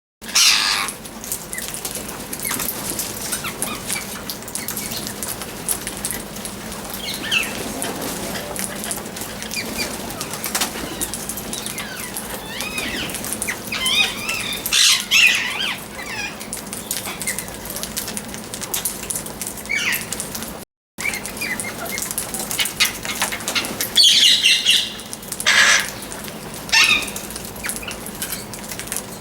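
Parrot chirping in short, scattered calls that glide up and down in pitch, louder clusters about halfway through and again near the end.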